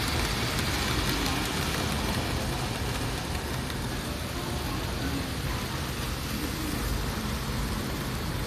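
N-scale model freight train, an EF81 electric locomotive pulling tank wagons, running along the layout track: a steady rolling hiss of small wheels on rail with motor whir. It is a little stronger in the first couple of seconds, then softens, over room noise.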